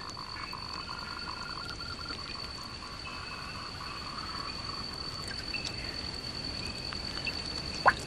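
Tree frogs calling in pulsed trains over a steady high-pitched insect trill, with a short rising chirp near the end.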